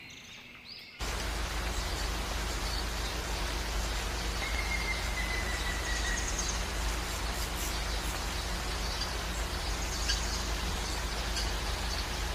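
Steady rushing beach ambience, starting abruptly about a second in, with a faint long whistle a few seconds later.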